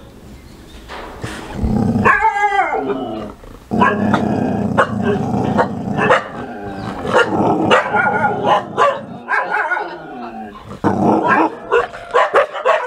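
A Kombai dog growling and snarling at someone close by: a long rumbling growl with pitched snarls, then short sharp snaps near the end. This is the aggressive warning of a guard dog.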